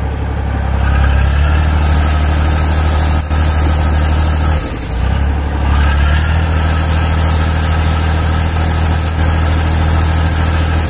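Ural six-wheel-drive truck's engine running hard as it tries to pull itself out of deep mud. The steady low engine note dips briefly about halfway, then comes back a little higher.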